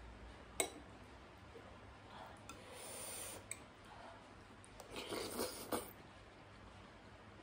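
Close-up eating sounds: a sharp click of a metal spoon against a porcelain bowl about half a second in, then a few seconds later a run of slurps as hot chilli soup and dumplings are sucked from the spoon.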